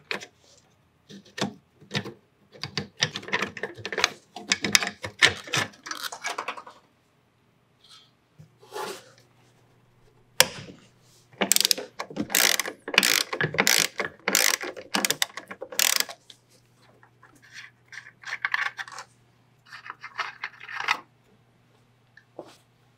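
Socket ratchet wrench clicking in several bursts of rapid strokes, loosening the nuts that hold the brake master cylinder to the brake booster.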